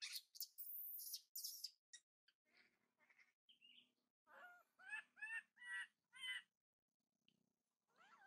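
Baby macaque crying: a few harsh, hissy squeals at the start, then a quick run of about five short, high, wavering calls about four seconds in.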